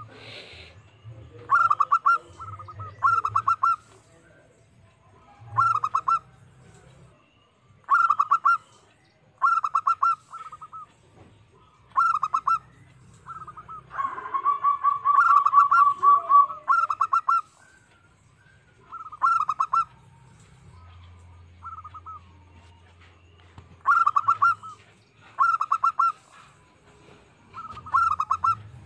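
Zebra dove cooing its song: short phrases of quick, rattling coo notes repeated every second or two, with a longer, louder run of coos about halfway through.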